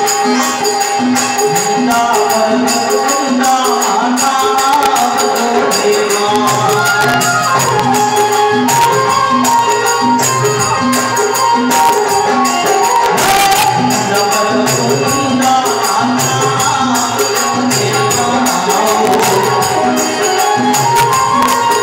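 Live Indian devotional bhajan music: harmonium and keyboard holding sustained tones over a steady drum beat, with constant jingling hand percussion.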